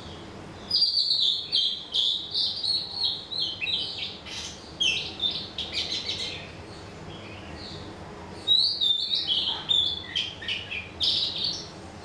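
A songbird singing in two bursts of quick, high chirping notes. The first starts about a second in and runs some five seconds; the second starts about eight and a half seconds in and runs about three seconds.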